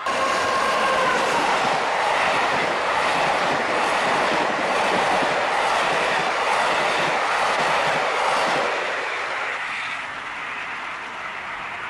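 HO-scale model train running past close by at speed, its coaches' wheels rattling steadily on the track. The sound drops away about nine seconds in as the train pulls into the distance.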